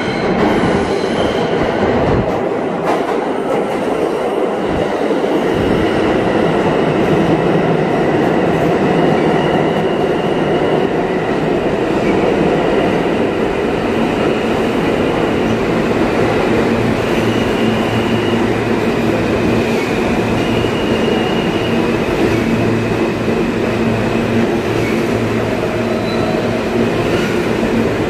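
R160 subway train running into the station and past the platform: loud, steady rumble and rattle of the cars on the rails, with brief high wheel squeals several times.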